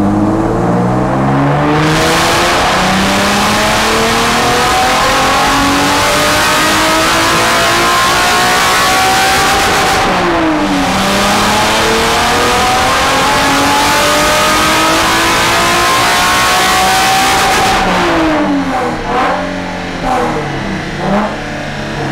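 Nissan 370Z's 3.7-litre V6 revving hard under full throttle in a power run on the dyno. The revs climb steadily for about ten seconds, drop sharply, climb again, then fall away with a few short blips near the end. The run measures the gain from a freshly revised engine map with new MAF scaling.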